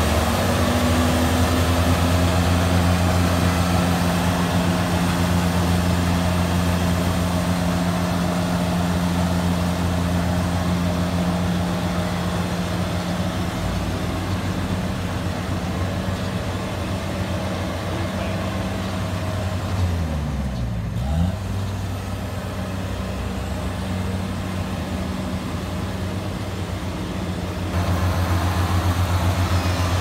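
Kubota combine harvester's diesel engine running with a steady low hum; about two-thirds of the way through its pitch dips briefly and comes back up.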